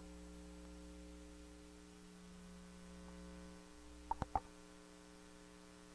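Steady electrical mains hum picked up by a telephone pickup coil on a sound-powered telephone's receiver, with no voice coming through. The lowest part of the hum fades a little, then three quick clicks come about four seconds in.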